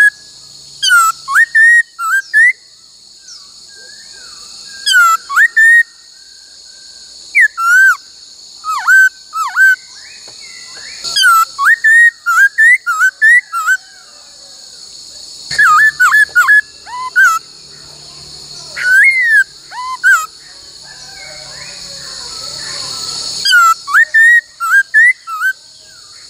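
Laughingthrush singing: loud phrases of slurred, whistled notes in bursts of a second or two, repeated about every two to four seconds with short pauses between.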